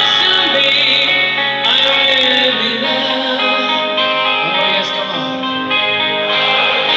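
Live rock band playing a slow power ballad over an arena PA: electric guitars with a male lead singer, recorded from within the crowd.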